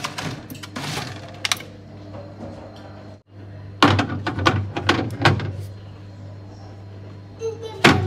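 Food being put back on a fridge's glass shelves and door rack: a series of knocks and clinks as a glass jar, a carton and an egg tray are set down, over a steady low hum.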